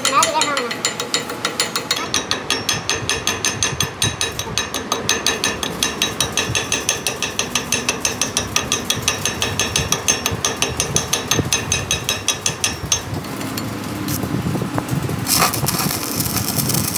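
Rapid, even mechanical clicking of a metal mechanism, about four clicks a second. Near the end the clicking stops and gives way to a steadier running sound with a single sharp knock.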